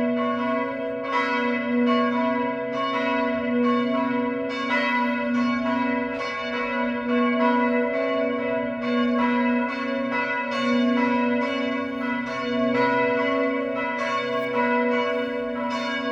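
The two smallest church bells of a five-bell peal cast in 1953 by Gebrüder Bachert, tuned b' and c#'', ringing together. Their strokes follow each other in quick succession, and the hum of each bell carries over into the next stroke. The swing rhythm seems noticeably faster than usual, for no known reason.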